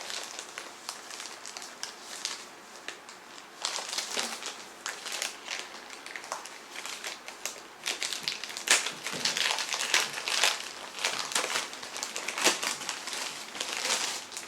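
Packaging crinkling and crackling as a magazine with a bundled CD is unwrapped and handled, in irregular rustling bursts that get busier and louder after the first few seconds.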